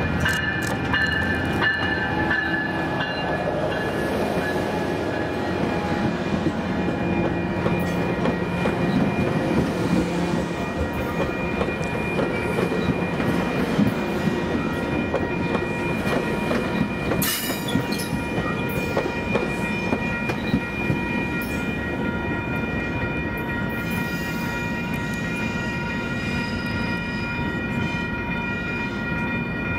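Train running past: steady rail and wheel noise with a clatter of wheels over the track, and a sustained high whine held throughout.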